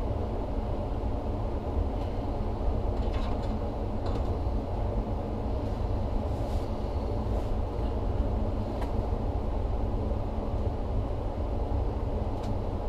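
Furnace blower running steadily with the burner off, a low, even rush of air and motor hum, with a few faint clicks.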